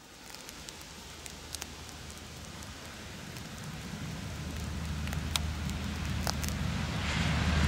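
Alstom Coradia LINT 41 diesel multiple unit (DB class 623) approaching, its diesel engine hum and running noise growing steadily louder.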